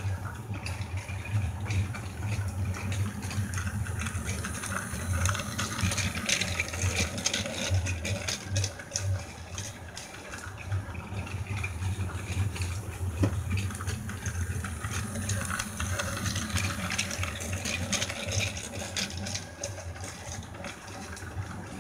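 Battery-powered Plarail toy freight train running around its plastic track loop: a steady motor and gear hum with a rapid clatter of wheels over the track joints, growing louder twice as the train comes nearer on the loop.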